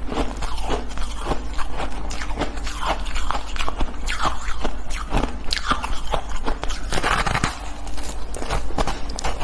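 Biting and chewing a block of pink-colored shaved ice: a dense, irregular crunching and crackling that goes on without a break.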